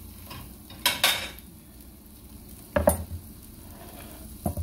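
Ceramic dishes knocking and clinking as a plate is handled and set down on the counter: a pair of sharp clinks about a second in and heavier knocks near three seconds and at the end, over the faint sizzle of green beans frying in a pan.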